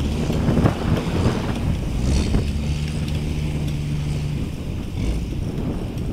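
Boat engine running with a steady low hum, under wind buffeting the microphone.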